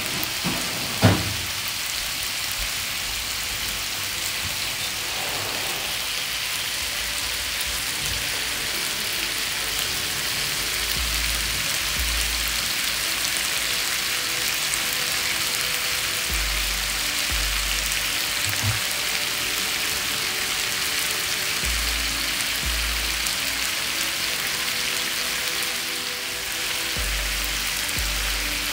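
Marinated beef slices and vegetables sizzling steadily on a hot electric griddle. A single sharp knock sounds about a second in.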